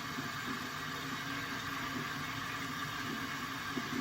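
Kitchen tap running steadily into the sink, with a few light knocks.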